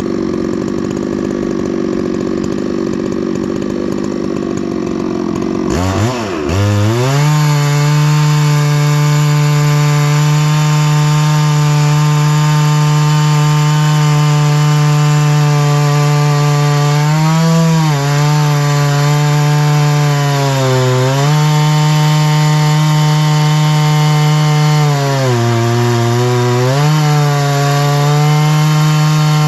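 Chainsaw on a chainsaw mill ripping a tamarack log lengthwise with a full-comp chain. For the first six seconds the engine runs lower and rougher. It then revs up to a high, steady pitch and cuts at full throttle, dipping in pitch a few times as the load in the cut bogs it down.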